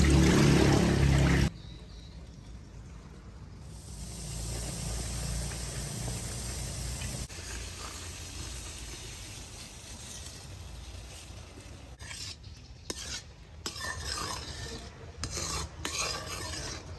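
Metal ladle stirring and scraping in a steel wok of hot liquid mixture, with a light sizzle. It opens with a loud rush lasting about a second and a half as the liquid is poured into the wok, and the scraping strokes come thicker in the last few seconds.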